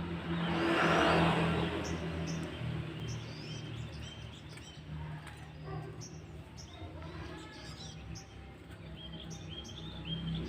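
Small birds chirping in short, high, repeated notes throughout, over a low steady hum. A passing vehicle swells up and fades about a second in.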